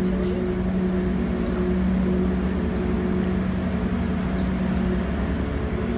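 Harbour ferry's engines and propulsion running with a steady drone while it manoeuvres into its berth: a constant low hum holding one pitch, with a fainter tone above it.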